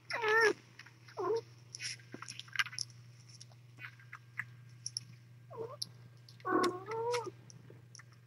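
Kittens mewing: several short, high calls, one right at the start and a pair about six and a half seconds in, over a low steady hum.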